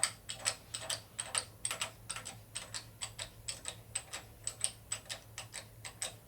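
A rapid, uneven series of sharp clicks, about five a second.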